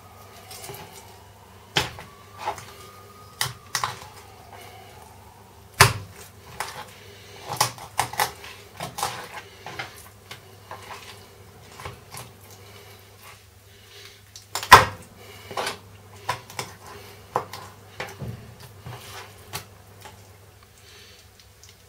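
Irregular sharp knocks and clicks of a small Boker PSK knife and raw chicken pieces against a plastic cutting board as the chicken is jointed. The loudest knocks come about 6 and 15 seconds in.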